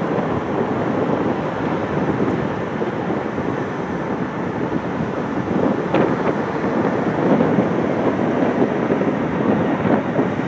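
Four CFM56 turbofan engines of an Airbus A340-300 airliner on short final at approach power, a steady broad rumble growing a little louder as it nears. Wind buffets the microphone.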